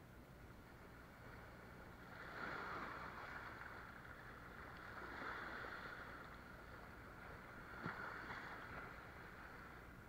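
Sea waves washing against shore rocks, faint, swelling and easing in surges a few seconds apart, with one short sharp click about eight seconds in.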